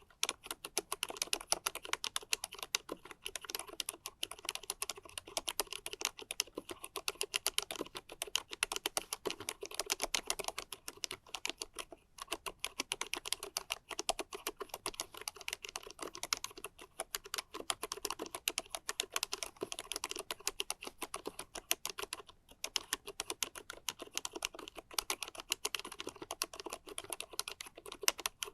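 Fast, continuous typing on a COX CK01SL mechanical keyboard fitted with 45 gf low-noise white switches and PBT keycaps: a dense run of soft keystroke clicks, several a second, pausing briefly twice.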